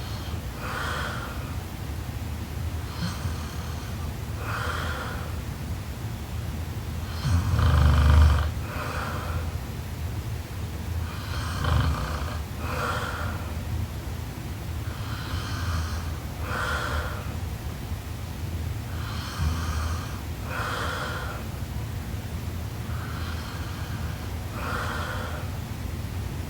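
A young woman snoring in her sleep, with slow breaths in and out about every four seconds. One louder, deeper snore comes about eight seconds in.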